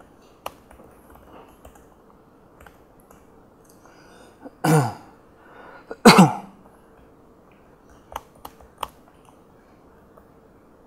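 A man coughs twice, about a second and a half apart, with a few light keyboard clicks before and after.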